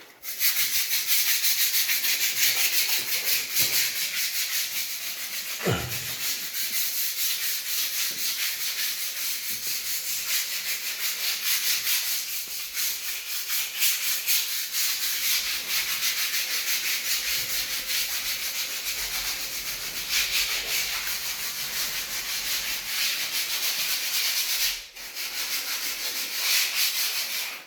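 Sandpaper scraping steadily over dried plaster filler patches, a dense scratchy rasp of quick back-and-forth strokes, with a brief pause near the end.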